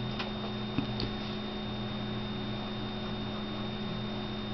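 Steady electrical mains hum with a faint high-pitched whine above it, and a few faint light taps in the first second or so.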